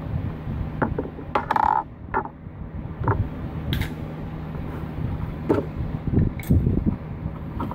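Hands working a coolant hose connector loose in a car's engine bay: scattered clicks, knocks and scrapes of plastic and metal parts, over a steady low hum.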